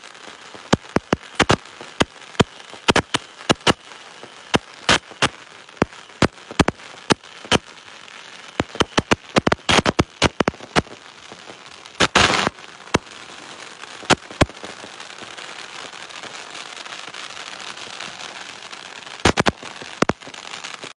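Fireworks and firecrackers going off at street level: a rapid, irregular string of sharp bangs, with a quick run of pops about twelve seconds in. After about fourteen seconds the bangs thin out to a steady hiss, and a few more bangs come near the end.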